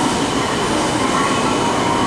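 E2 series Shinkansen train running into the platform: a steady rail rumble with a faint high whine held throughout.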